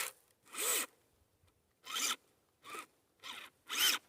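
Kyosho Blizzard RC snow vehicle's electric motor and tracks revved in about five short raspy bursts, each rising and falling in pitch, as the driver tries to rock the rolled-over machine back onto its tracks.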